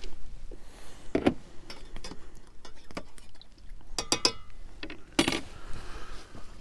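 Scattered clinks and knocks of cups and tea things being handled, with a few light ringing clinks about four seconds in and a louder knock soon after.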